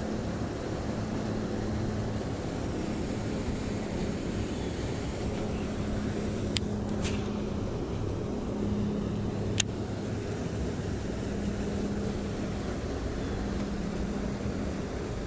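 A steady low mechanical hum like a distant running motor, with a few short sharp clicks about halfway through.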